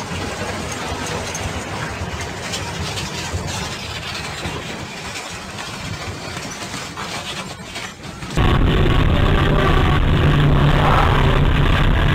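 Road and vehicle noise from two spliced clips. First comes a steady noisy outdoor sound of trucks on a road. About eight seconds in it cuts suddenly to a louder, steady low engine drone in traffic.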